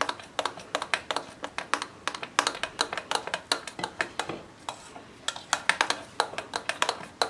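A spoon stirring thick mango and semolina batter in a glass bowl, clicking against the glass in a rapid, uneven run with a brief pause a little past halfway.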